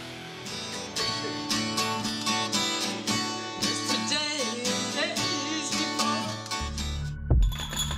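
Acoustic guitar strummed and picked, with a woman singing along. Near the end a bass comes in, and after a short break a different piece of music takes over.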